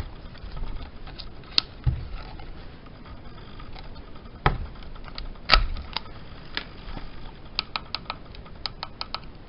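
Scattered plastic clicks and taps from handling a Stackmat Pro speedcubing timer, with a quick run of short clicks near the end.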